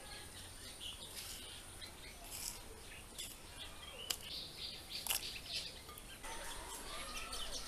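Small birds chirping over and over, with two sharp cuts about four and five seconds in as spiny gourd is sliced on a boti blade.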